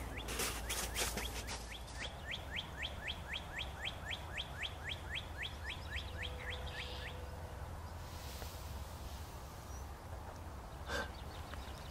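A bird singing a long series of quick down-slurred chirps, about four or five a second, for roughly seven seconds, then stopping, over a low outdoor background rumble. A brief faint sound follows near the end.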